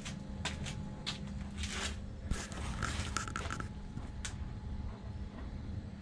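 1955 Diamond milling machine running on its 1 hp single-phase motor with a steady low hum, with scattered clicks and scrapes and a short squeak about three seconds in.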